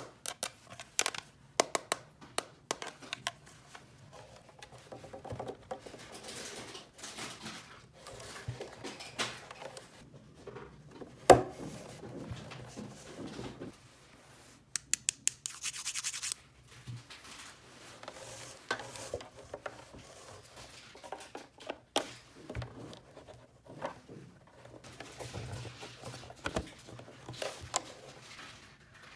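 Close-up handling of small objects: scratching and rubbing with many scattered light clicks and taps, one sharper click about eleven seconds in, and a brief hissing rub around the middle.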